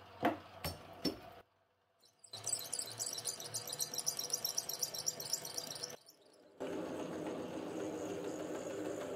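Metal lathe drilling the crankshaft bore in a spinning model-engine crankcase block with a large twist drill fed from the tailstock. Three sharp knocks come first, then a hissing, fast-chattering cutting sound, and after a short break a steadier, lower running sound; each section starts and stops abruptly.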